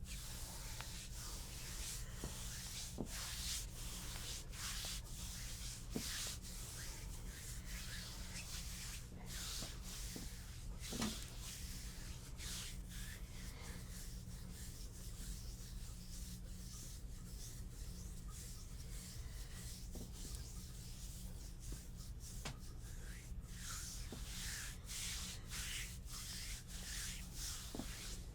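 Hands rubbing over bare skin in repeated massage strokes, each a soft hiss lasting up to about a second, over a steady low hum.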